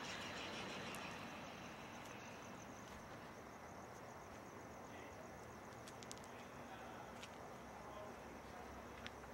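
Faint, steady outdoor night ambience: a low hiss with a thin, high, pulsing chirr, and a few soft clicks.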